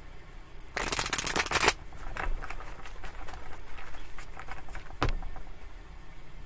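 A deck of tarot cards being shuffled by hand. About a second in comes a quick burst of rapidly flicking cards, the loudest part, followed by softer card rustling and a single knock about five seconds in.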